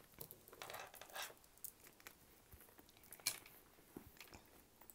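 Faint clinks and rustles of a leather shoulder bag being handled: its gold-tone chain strap woven with leather and its metal hangtag chink against the hardware, with a sharper click about three seconds in.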